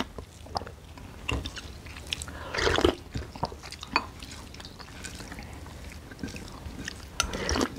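Chewing and wet mouth sounds of people eating rice and curry, with a few sharp clicks, including a louder burst near the middle and another near the end.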